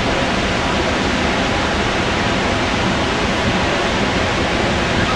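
Lower Falls of the Yellowstone River: a large volume of water pouring over the brink, a steady, loud rush of falling water with no let-up.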